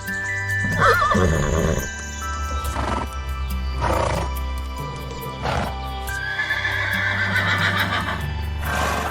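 A horse whinnies about a second in, a quavering call, followed by several shorter breathy horse sounds. Calm background music plays throughout.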